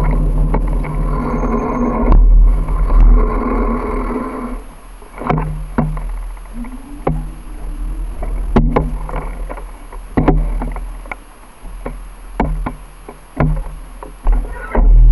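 A motor vehicle's engine running close by for about the first four seconds. After that come irregular knocks and clicks over a low wind rumble on the microphone.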